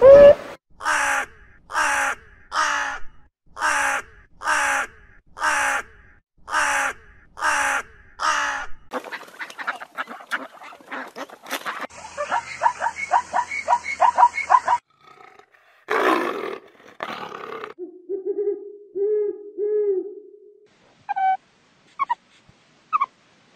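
A string of animal calls: about a dozen evenly spaced calls over the first nine seconds, then chattering, a fast trill for a few seconds, and scattered short cries and chirps toward the end.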